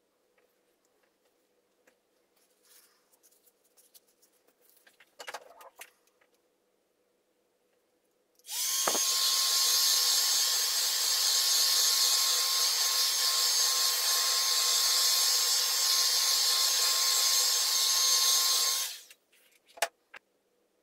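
Electric hot-air gun switched on about eight seconds in, its fan blowing steadily with a constant whine for about ten seconds, then switched off, followed by a click. It is being blown over a wet acrylic pour to bring up cells. Faint handling knocks come before it.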